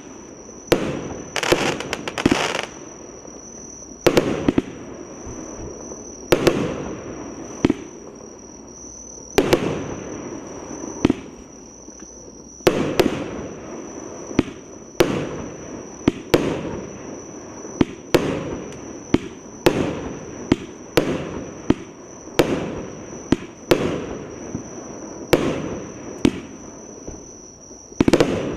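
A 48-shot, 26 mm firework cake firing a long run of sharp bangs, about one every second or two, each trailing off in a short hiss. A steady high-pitched tone runs underneath.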